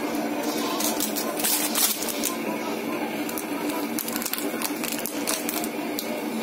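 Light clicks and clatter of kitchen containers and utensils being handled over a steady background hum, coming in clusters about a second in and again past the middle.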